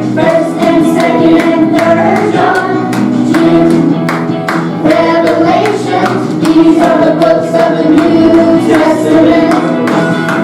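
A recorded song playing: a group of voices singing over a band with a steady beat.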